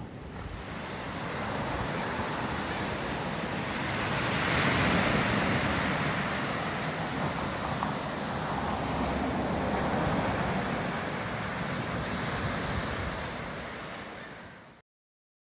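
Ocean surf washing in, a steady rush that swells loudest a few seconds in and again about two-thirds of the way through, then fades and cuts off just before the end.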